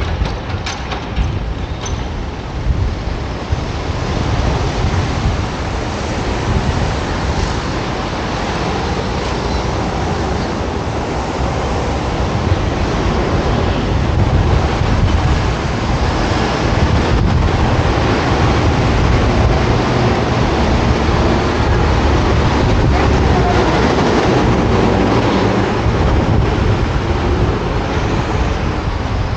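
Wind rumbling and buffeting on the microphone of a camera carried on a moving bicycle, over the steady noise of city road traffic. A few sharp ticks come in the first couple of seconds, and the noise grows a little louder about halfway through.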